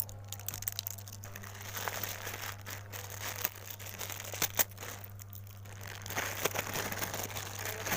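Parcel packaging crinkling and rustling as it is handled and opened, with many sharp crackles, busiest near the middle and toward the end. A steady low hum runs underneath.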